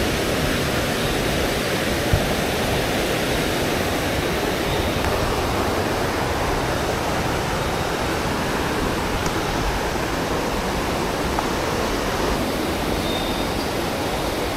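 Steady rushing of a nearby waterfall, an even wash of falling water with no break.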